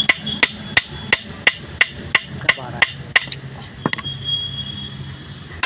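Hammer blows on steel at the output shaft of a Swaraj Mazda truck gearbox, a steady run of sharp knocks about three a second, as parts are tapped home during reassembly. The blows stop about four seconds in.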